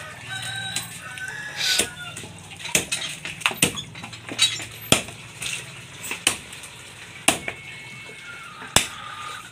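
Bolo knife chopping through the bill and head bone of a billfish on a plastic cutting board: about ten sharp chops at irregular intervals.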